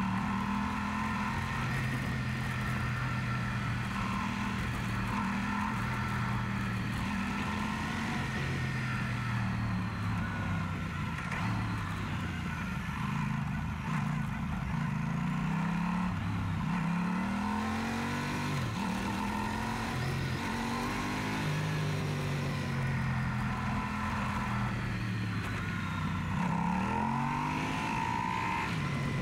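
Yamaha Super Ténéré's parallel-twin engine running under way on the road. The revs hold steady at first, then drop and climb again several times in the second half.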